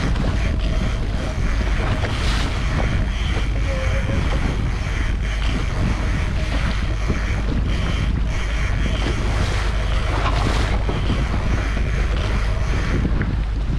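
Steady wind buffeting the microphone over a moving motorboat, with water rushing along the hull.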